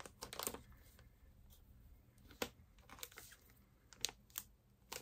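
Faint rustling and a few light, sharp clicks of packaging being handled and opened by hand.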